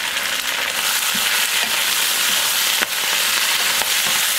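Beef, onion and green onion sizzling steadily in hot oil in a wok as they are stirred and tossed with a wooden spatula, with one sharp click about three seconds in.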